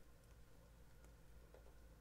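Near silence: room tone with a steady low hum and a couple of faint ticks.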